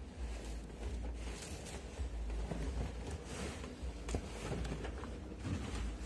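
Cloth bed sheets rustling and swishing as they are pushed by hand into a top-loading washing machine drum, with irregular soft knocks of handling over a low steady rumble.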